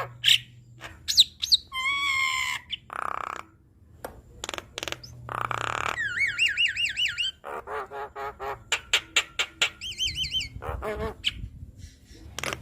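Javan myna singing a varied, chattering song of whistles, harsh squawks and clicks. It includes a run of quick looping whistled trills partway through, then rapid repeated notes.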